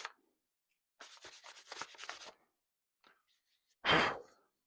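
Light-grit sandpaper rubbed by hand along a steel knife blade in a run of short scratchy strokes. Near the end comes one short, louder puff of noise, the loudest sound here.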